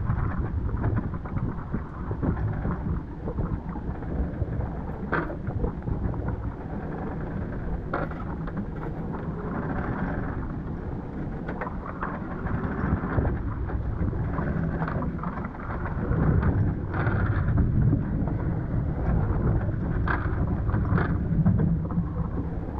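Gusty wind buffeting the microphone on a sailboat, a steady rumbling noise that swells louder about two-thirds of the way through, with a few sharp knocks from the boat.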